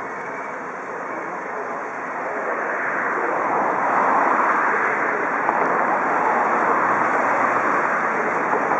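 Steam locomotive rolling in slowly with a steady hiss of steam that grows louder about two seconds in, over low crowd chatter.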